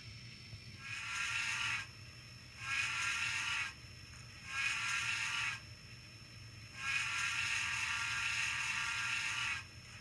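Steam whistle from the sound decoder of a Bachmann Spectrum 4-8-2 Mountain model locomotive, blown in four blasts: three of about a second each, then a longer one of about three seconds, over a low steady hum.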